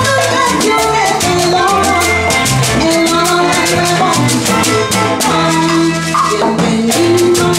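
Live band playing a Latin-style waltz on violin, small strummed guitar, electric bass and drum kit, with a beaded gourd shaker (shekere) rattling along in time.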